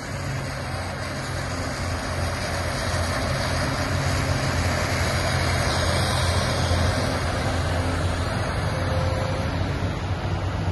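Heavy diesel engines of a dump truck and a tracked excavator running steadily at a job site, a little louder through the middle.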